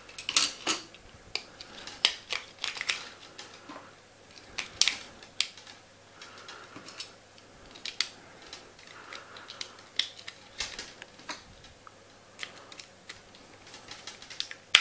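Scattered light clicks and taps of a small plastic battery box for LED wire lights being handled and opened to take batteries. Near the end a small screwdriver works at the box.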